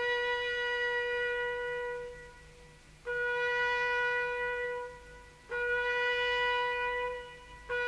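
A solo trumpet playing a slow call in honour of the fallen: long held notes at the same pitch, three in a row, each fading out before the next, with a fourth beginning near the end.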